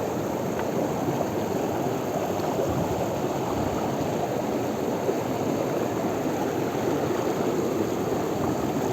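Steady rush of river water spilling over a small waterfall.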